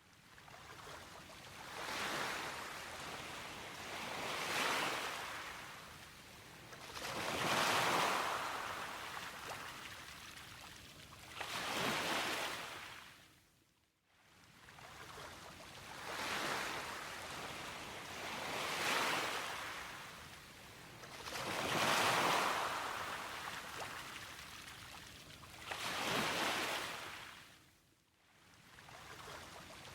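Gentle waves of the Seto Inland Sea washing ashore, each swell rising and falling away every three to four seconds.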